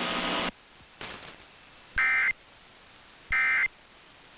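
Emergency Alert System end-of-message data bursts: short, shrill, identical bursts of digital tones, each about a third of a second long, coming about 1.3 s apart, twice. They signal the end of the broadcast alert. Before them, a louder steady sound cuts off about half a second in.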